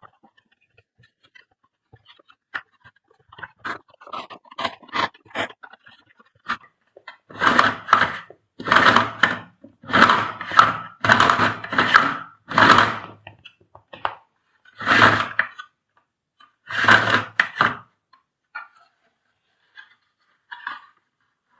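Handling noises from the repair work: a run of about eight short scraping and rubbing strokes in the middle, with a few faint knocks and ticks before and after.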